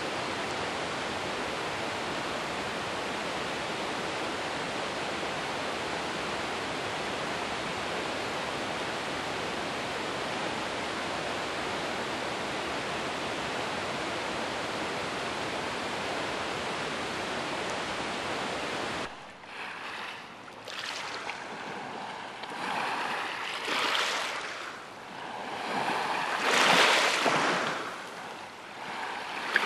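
Steady, even rushing of a swift stream swollen by rain. About two-thirds through it cuts to a closer, louder rush of water over granite stones that swells and falls every two to three seconds.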